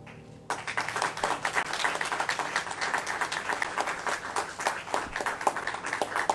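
Audience applauding with many hands clapping, breaking out about half a second in after the last piano notes fade.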